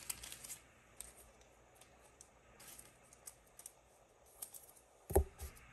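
Faint rustling and small scattered clicks of trading cards and packs being handled on a table, with one sharp thump about five seconds in.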